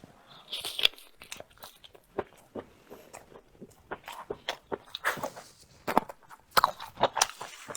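A person chewing and biting food close to the microphone: a run of short wet smacks and crunches, growing denser and louder in the second half.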